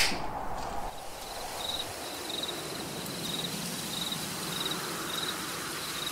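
A single sharp smack right at the start, then crickets chirping at night: short high chirps repeating about every two-thirds of a second over a faint steady hiss.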